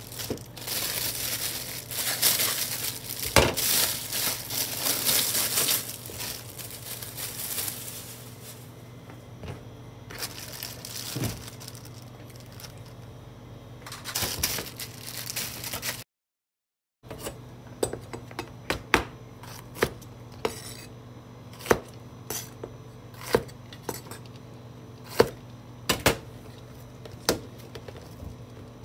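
Plastic produce bag crinkling as long eggplants are unwrapped. After a brief break in the sound, a kitchen knife strikes a cutting board in a dozen or so sharp, separate chops, about one a second, as green peppers are cut up.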